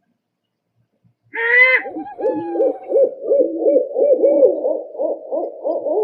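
Owl calling: starting about a second in, a short higher-pitched note, then a quick run of wavering hoots, about three a second.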